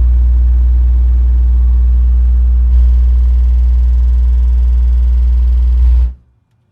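12-inch Ampere Audio Encore subwoofer with a 3-inch-coil neodymium motor, playing a very low, loud bass test tone at full stroke in a car. A steady buzz rides on top of it, which the owner puts down to the track rather than mechanical noise from the sub. It cuts off suddenly about six seconds in.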